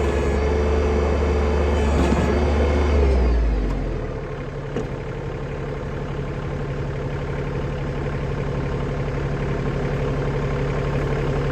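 Tractor engine running at working speed, then throttling down with a falling pitch about three to four seconds in. It settles to a steady, evenly pulsing idle.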